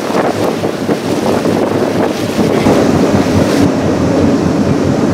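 Steady wind rumble on the microphone of a moving boat, over the boat running through the water.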